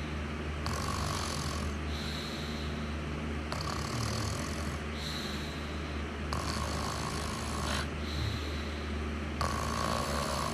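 Snoring in slow, regular breaths, about one every three seconds, over a steady low hum.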